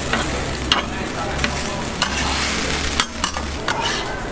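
Egg pancake sizzling on a hot flat-top griddle while a metal spatula scrapes and taps against the griddle surface in sharp clicks every half second or so.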